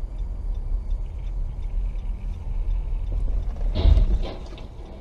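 Low rumble of a moving car, then a loud collision about four seconds in: a quick cluster of three or so impact knocks, after which the noise drops.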